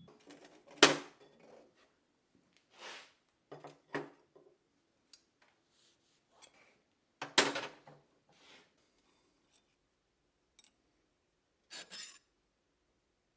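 Scattered clinks and knocks of metal tools and steel being handled and set down on a hard surface, with a few short scraping sounds between them. The two loudest knocks come about a second in and a little past the middle.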